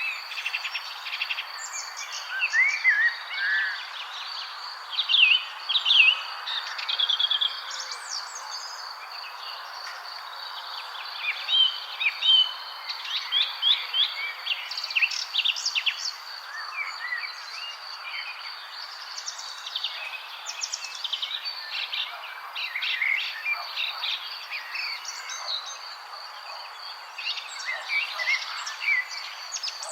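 Several wild birds chirping and trilling in a mixed chorus, many short calls overlapping. Behind them run a steady high-pitched drone and a soft outdoor hiss.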